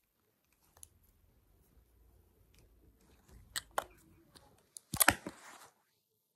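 Quiet room with a few small clicks, then a louder cluster of sharp clicks and a brief rustle about five seconds in: fingers handling the phone close to its microphone.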